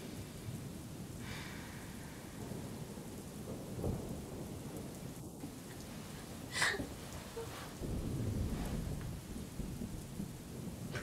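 Steady rain with low rumbles of thunder, one about four seconds in and a longer one around eight seconds, and a single sharp crack a little past halfway.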